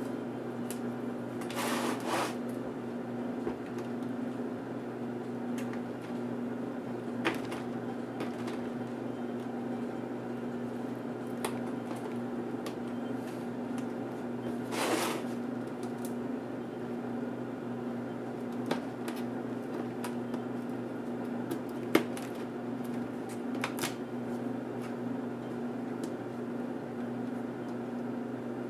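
Small sharp clicks and two brief scraping rustles, about two seconds in and about halfway through, as a plastic laptop screen bezel is pried and unclipped with a small screwdriver and by hand, over a steady low hum.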